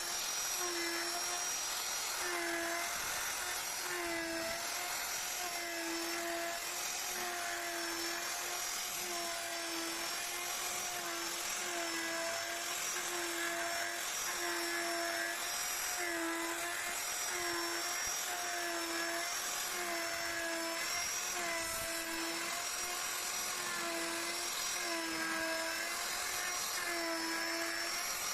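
Handheld electric power tool running without pause as it carves wood: a steady high motor whine whose pitch dips slightly and recovers again and again as the cutter bites into the wood.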